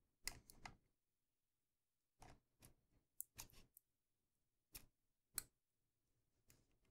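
Faint, scattered plastic clicks and ticks of a battery being fitted into a Yi 4K action camera and its battery door handled, eight or so short clicks spread over several seconds.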